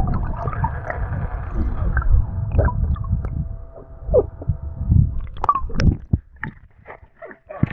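Water gurgling and sloshing with an uneven low rumble, dropping away about five seconds in to a few short knocks and clicks.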